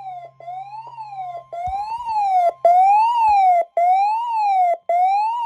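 Electronic wailing siren alarm sweeping up and down about once a second, with short breaks between sweeps and jumping much louder about halfway through: a severe thunderstorm warning alert going off. A faint steady tone underneath stops about halfway, and there are two dull bumps.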